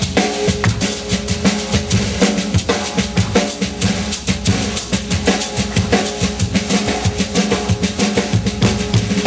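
Shekere, a gourd wrapped in a net of beads, played in a fast, even rhythm: rattling beads with low thumps on the gourd.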